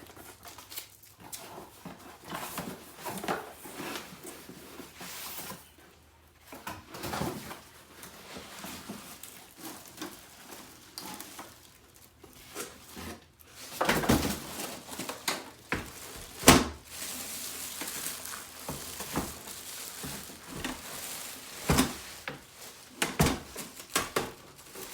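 A deep fryer being unpacked from its cardboard box: irregular rustling and scraping of cardboard and packaging, with knocks and a few louder thumps about halfway through as the fryer and its parts are handled.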